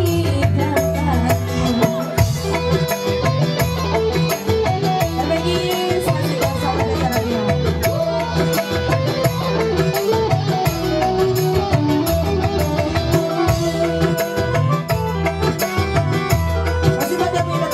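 Live dangdut band playing: a woman sings into a microphone over electronic keyboard and drums with a steady beat.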